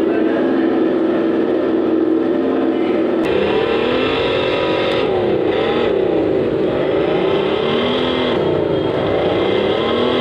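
Simulated engine sound from the EVTRIC Rise electric motorcycle's artificial engine-sound system. It starts as a steady engine-like drone, and about three seconds in it turns into revving that rises and falls in pitch again and again.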